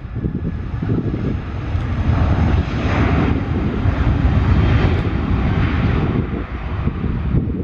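Airbus A320 jet airliner's engines running at high power as it rolls fast down the runway past the listener: a loud rumble that builds, is loudest around the middle, and eases off near the end.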